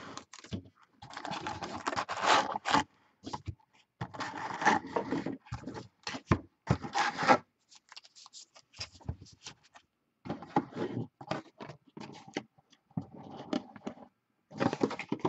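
Cardboard trading-card box and packs being handled: irregular scraping and rubbing in bursts, with short silences between.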